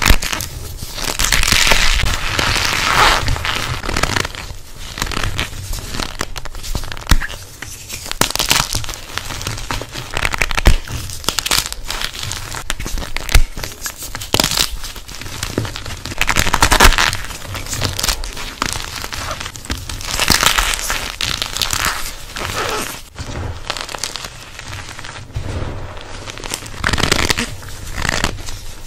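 Hands squeezing and crumbling blocks of gym chalk packed in cornstarch. The cornstarch squeaks and crunches in repeated swells of a second or two, with sharp snaps as pieces of chalk break.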